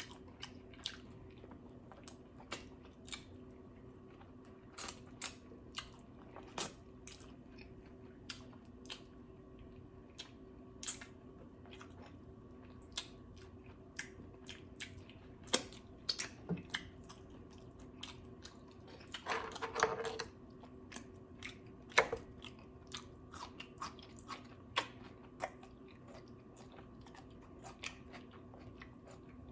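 Close-up mouth sounds of someone eating: irregular chewing, biting and crunching clicks, with a longer noisy crunch about twenty seconds in. A faint steady hum runs underneath.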